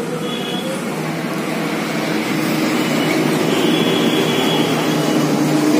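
A vehicle engine running as a steady hum under a haze of noise, growing a little louder toward the end.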